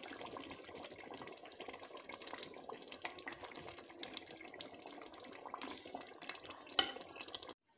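Tomato and red-oil stew simmering in a stainless steel pot, a steady bubbling with many small irregular pops, and one sharp click a little before the end. The sound cuts off abruptly just before the end.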